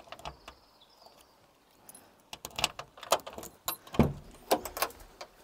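Metallic clicks and rattles at the latch of a Kobelco SK75 excavator's cab door as it is unlocked and opened: a few light clicks at first, then a busy run of clicks and knocks from about two seconds in, loudest around four seconds in.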